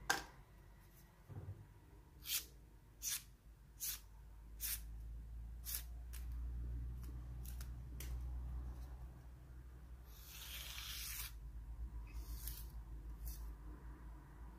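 A sharp click at the start, then a Benchmade Proxy 928's CPM-20CV blade slicing paper as a sharpness test of its edge. It makes a series of short, crisp hisses about a second apart, with one longer slicing hiss around ten seconds in.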